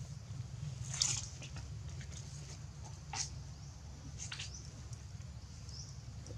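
Macaques giving short, high-pitched squeals, about three of them, each sliding down in pitch, over a steady low rumble of background noise.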